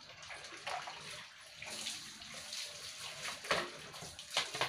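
Water sloshing and splashing as empty plastic 1.5-litre bottles are rinsed by hand in a basin of water. There are a couple of short clatters of the bottles being handled near the end.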